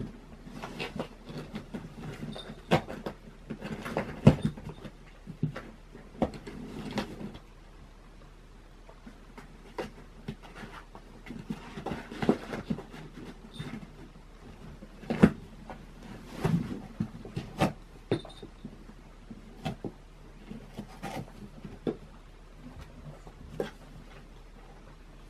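Cardboard boxes rustling, scraping and knocking irregularly as cats shift about inside them, with a few sharper knocks, the loudest about four seconds in and again about fifteen seconds in.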